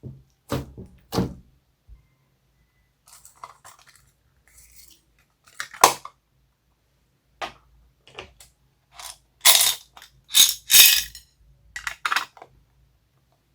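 Homemade slime being worked by hand: irregular sticky pops and crackles, with the loudest run of them about nine to eleven seconds in.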